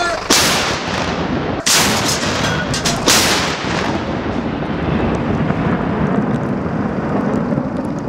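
M60 tank's 105 mm main gun firing for avalanche control: a loud blast about a third of a second in, two more sharp reports about a second and a half apart, then a long rolling rumble.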